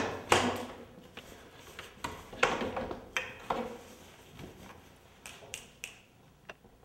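Wooden director's chair knocking and clattering as it is moved and set down on the floor: several sharp knocks in the first four seconds, then lighter taps.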